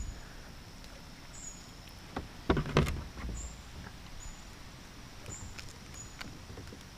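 A few knocks and bumps against a kayak's hull, the loudest cluster about two and a half seconds in, with smaller clicks around it, as a freshly caught bass is handled on board. A faint short high chirp repeats about once a second.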